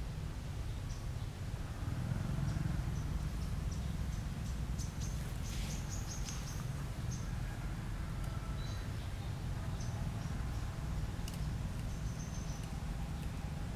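Outdoor ambience: a steady low rumble with scattered short, high chirps and a few faint ticks, heaviest around the middle.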